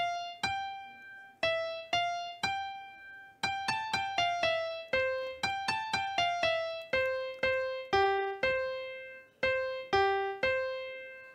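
Music: a simple melody of single piano notes, each struck and left to ring and fade, about two a second with short pauses between phrases. It stops near the end.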